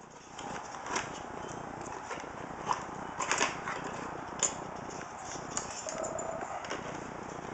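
Handling of the stock CPU cooler's cardboard packaging: scattered light rustles and taps over a steady background hiss.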